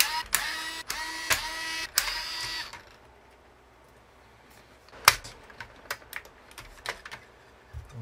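Cordless electric screwdriver whirring in several short runs, each starting with a quick rise in pitch, as it backs out screws; it stops about two and a half seconds in. Then come scattered sharp clicks and taps, one loud click about five seconds in.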